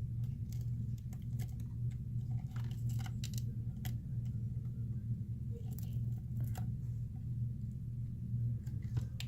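Scattered small clicks and crackles of a pry tool lifting a cracked phone LCD and its broken glass, over a steady low hum.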